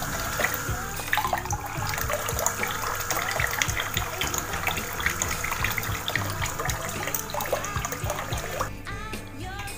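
Water splashing and trickling, with background music.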